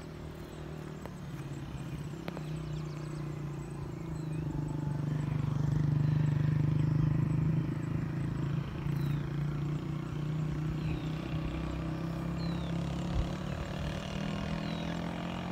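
A steady engine hum that grows louder toward the middle and then holds, with a few faint, short, high chirps over it.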